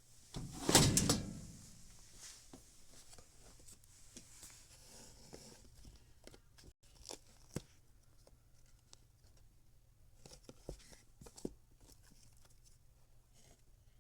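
Fidget toys being handled: a loud rasping noise lasting about a second near the start, then scattered light clicks and taps.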